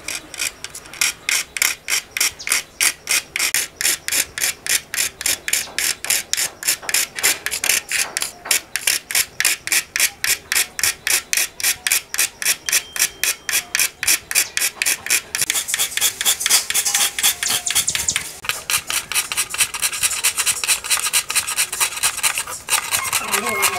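Round hand file rasping back and forth across a black plastic rifle buttstock and receiver, in even strokes about three or four a second. About two-thirds through, the strokes turn faster and denser.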